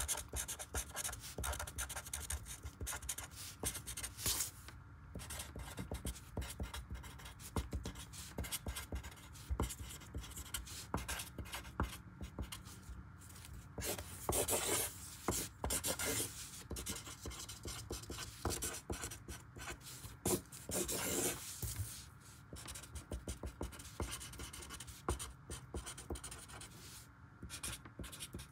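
Felt-tip marker scratching across lined notebook paper in quick short strokes as words are written, with a couple of longer, louder strokes around the middle.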